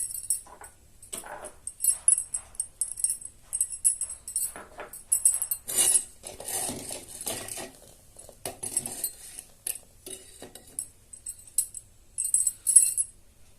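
Metal kitchen utensils clinking and jingling in short, irregular bursts, with a stretch of duller knocking and scraping around the middle.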